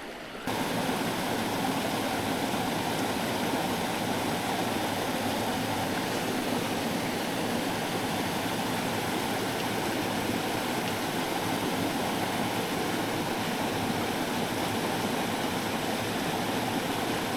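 Small headwater stream rushing steadily, with no breaks. It comes in abruptly about half a second in.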